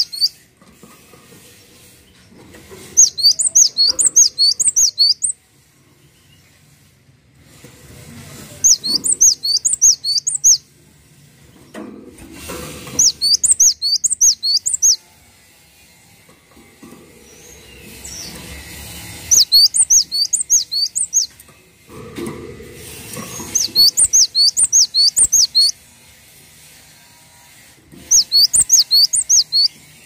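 Cinereous tit (gelatik batu) singing: six bouts of a rapidly repeated high, ringing note, about four notes a second, each bout lasting two to three seconds with short pauses between.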